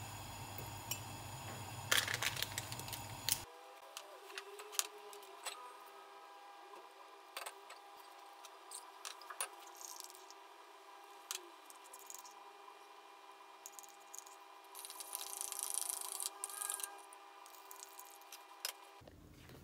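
Faint kitchen handling sounds: a low rumble for the first few seconds while a gas hob burner is lit, then scattered clicks, clinks and scrapes around a ceramic mug, with a short rustling hiss about fifteen seconds in.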